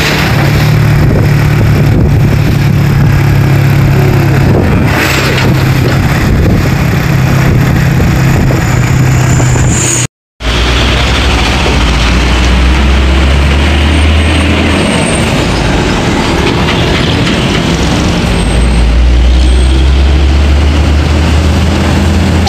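Steady engine and road noise from inside a moving vehicle driving close behind an intercity coach. After a sudden cut, heavy diesel traffic passing close by, with a deep engine drone that swells towards the end as a Mercedes-Benz intercity coach pulls past.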